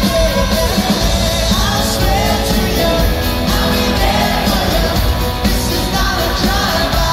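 Live pop-rock band playing, with a male lead vocal over electric guitar and drums, recorded from the audience in a large hall.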